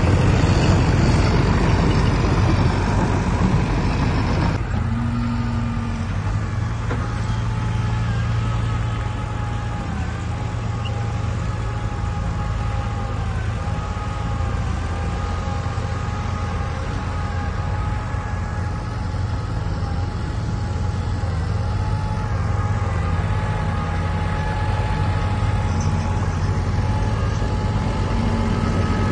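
Heavy diesel construction machinery running: a low engine drone with a steady, slightly wavering whine above it. The sound is harsher for the first four or five seconds, then settles into a steadier run.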